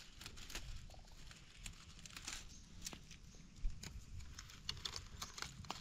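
Faint, scattered crackles and light rustling of dry leaves and twigs as young pak wan shoots are picked by hand.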